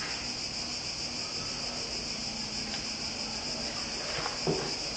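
Cicadas buzzing steadily: a high, even, continuous drone.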